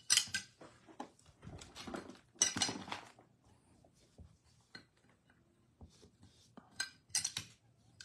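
Sealed trading card packs and boxes being handled: plastic wrappers rustling and crinkling, with light knocks and clicks, in four short bursts separated by pauses.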